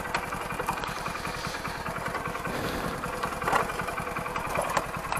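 Hero Splendor Plus's small air-cooled single-cylinder engine running steadily at low revs as the bike rolls along slowly.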